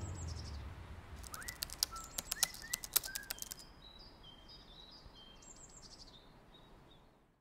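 Birds chirping, with short rising calls mixed with a quick run of sharp clicks about a second in. Short high whistled notes follow and fade away near the end.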